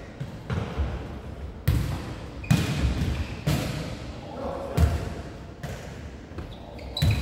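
Jokgu ball thumping as it is kicked and bounces on the wooden gym floor during a rally, a string of sharp thuds about a second apart, echoing in the large hall.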